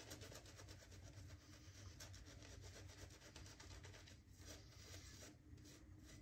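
Faint rubbing of a Chisel and Hound shaving brush working lather over a bearded face, a quick, even run of strokes.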